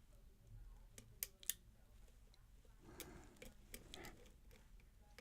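Lock pick and tension wrench working the pins of a pin-tumbler challenge lock: scattered faint metallic clicks, two sharper ones about a second and a half in.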